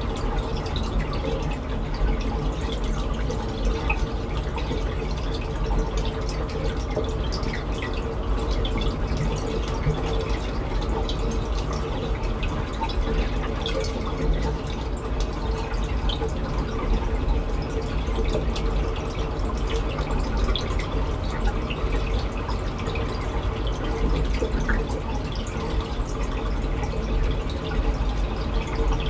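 Reef aquarium water trickling and bubbling steadily, with many small drips and pops over a low, constant rumble of running water.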